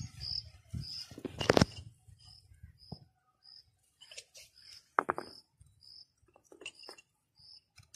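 A cricket chirping steadily, short high chirps about twice a second. A few sharp knocks and clicks break in over it, the loudest about a second and a half in and another about five seconds in.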